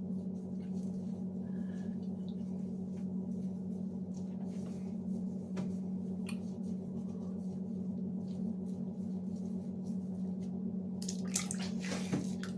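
A steady low hum with a few overtones, joined by faint small clicks; in the last second or so, water starts splashing as a face is rinsed.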